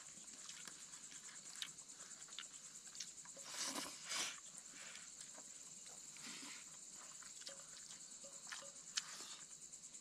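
Night insects chirring steadily in a fast, high, even trill. Soft clicks and two brief rustles about four seconds in come from people eating off plates.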